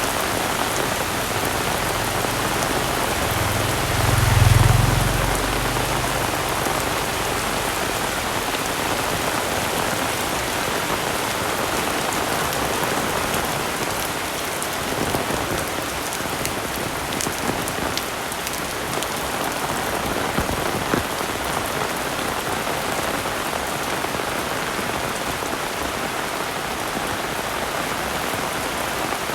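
Heavy rain falling steadily as a dense, even hiss, with scattered sharp drip ticks. About four seconds in there is a brief low rumble, the loudest moment.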